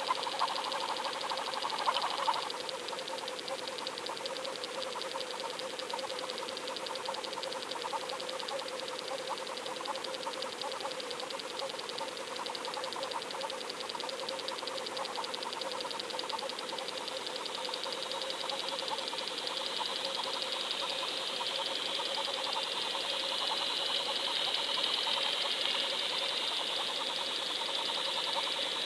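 Underwater sound picked up by a GoFish Cam towed through the water behind a swimbait: a steady mechanical hum with rapid, even ticking. A hiss grows stronger in the second half.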